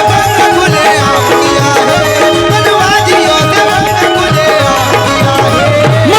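Instrumental break in a live bhimgeet (Ambedkarite devotional song): a melody instrument plays an ornamented tune over a steady, repeating drum beat.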